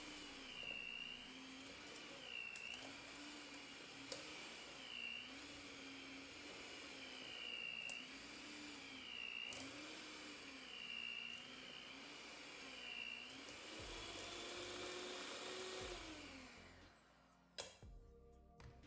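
Electric hand mixer with dough hooks kneading pizza dough in a stainless steel bowl. The motor's whine dips in pitch about every second and a half as the hooks drag through the dough. Near the end it runs up briefly, then winds down and stops, followed by a couple of clicks.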